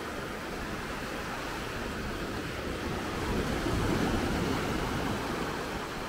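Small sea waves breaking and washing up the sand at the water's edge, a steady wash that swells louder for a couple of seconds about three seconds in.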